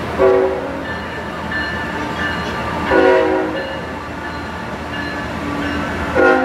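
Freight train cars rolling past with a steady rumble. Three short, loud pitched tones break through it, evenly spaced about three seconds apart.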